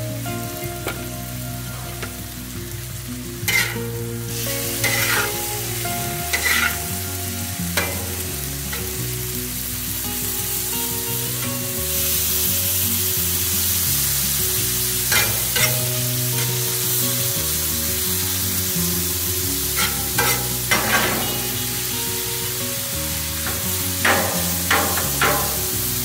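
Diced chicken and sausage sizzling on a Blackstone flat-top griddle, with a metal spatula scraping the steel plate in short clusters of strokes. The sizzle gets louder about halfway through, over quiet background music.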